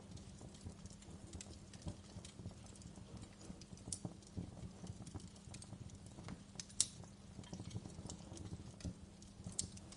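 Wood fire crackling in a fireplace: a steady low rustle of burning with irregular sharp pops and snaps, the loudest pop about seven seconds in.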